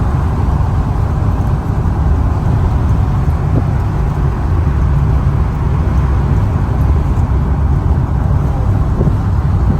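Loud, steady low rumble of a moving vehicle, with a couple of faint clicks.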